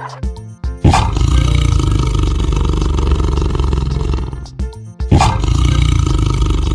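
A large animal giving two long, deep, rough calls: the first starts about a second in and lasts about three seconds, and the second starts about five seconds in.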